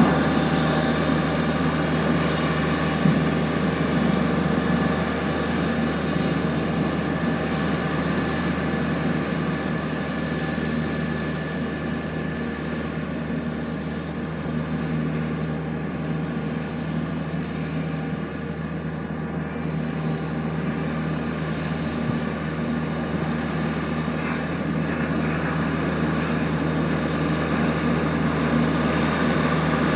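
A road roller's engine running steadily, a constant drone that dips a little in level midway and comes back up toward the end.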